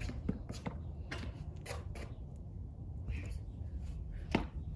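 A few irregular knocks and scuffs on concrete, with one sharper knock near the end, over a low steady rumble.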